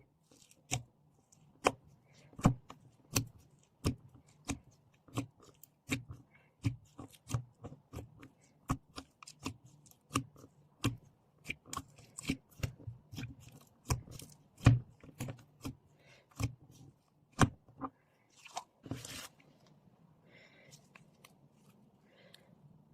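A steady run of sharp, crisp snaps and clicks, about one to two a second, from slime being handled in an ASMR slime play. A short rustle follows near the end, then it goes quiet.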